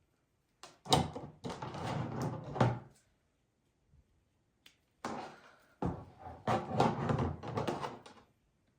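Paper ribbon crinkling and rustling as it is handled and tied into a bow, in two bouts, each starting with a sharp knock.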